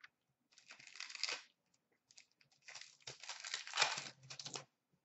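Trading-card pack wrappers and cards rustling and crinkling as hands handle them, in two spells, the second longer.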